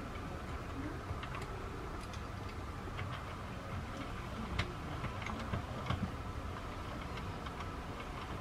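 Loops and Threads Knit Quick plastic circular knitting machine being hand-cranked: light irregular clicks as its hooks turn past the carriage and knit a round of stitches, over a low steady hum.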